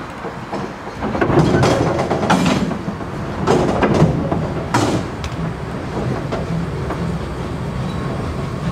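Narrow-gauge steam train on the move, heard from a carriage's open end platform: wheels rumbling on the rails with sharp clacks, the rumble growing louder about a second in.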